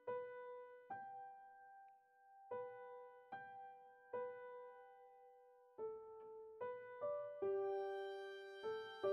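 Background music: a slow keyboard melody, single piano-like notes about one a second that ring and fade, thickening into fuller chords near the end.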